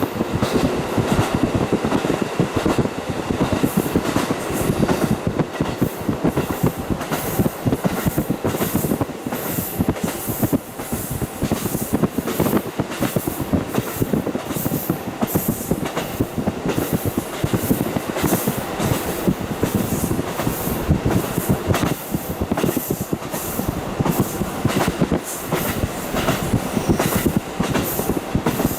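Running noise of a KiHa 40 diesel railcar (KiHa 40-1714) heard from inside with the window wide open: the wheels run over the track with a steady stream of clicks, under a dense rushing noise.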